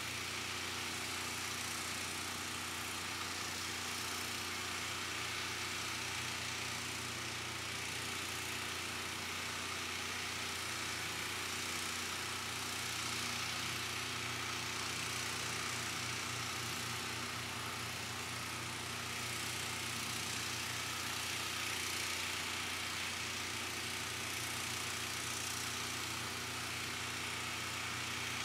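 Steady machine hum with an even hiss over it, holding constant throughout.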